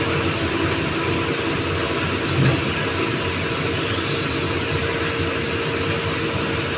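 Doosan 225 excavator's diesel engine running steadily, with a brief low thump about two and a half seconds in.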